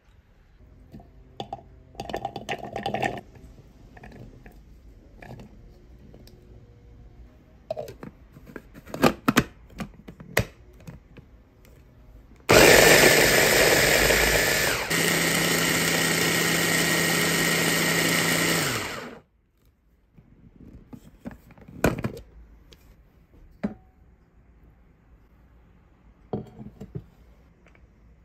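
Electric mini chopper (hand-pressed food processor) running for about six seconds, grinding cooked chickpeas to a paste; its sound steps down a little partway through and the motor winds down with a falling pitch when released. Short knocks and clatter of handling come before and after.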